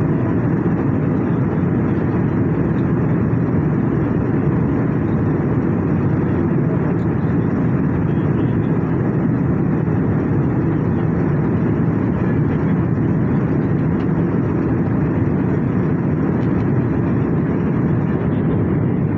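Steady cabin noise of an airliner cruising at altitude: an even, deep rush of jet engines and airflow over the fuselage, unchanging throughout.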